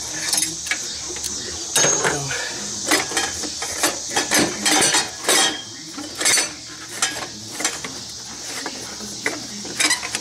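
Metal hand tools clinking and knocking against metal in irregular bursts as a bolt is worked loose, with a cluster of sharper clinks in the middle.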